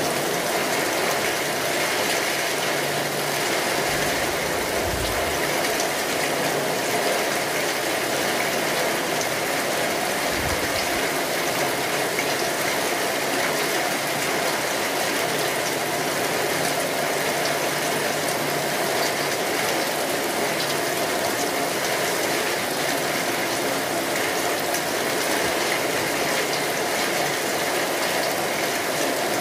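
Steady rain falling, an even continuous hiss with no pauses, with two brief low rumbles about four and ten seconds in.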